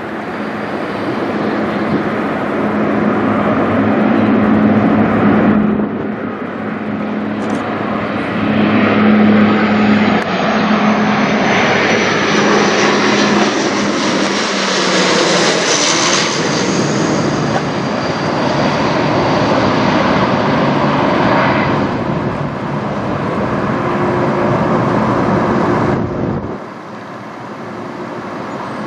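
Dash 8 twin-turboprop airliner passing low overhead: a steady propeller drone with a high turbine whine that swells to a peak about halfway through and then eases off. The sound drops off suddenly near the end.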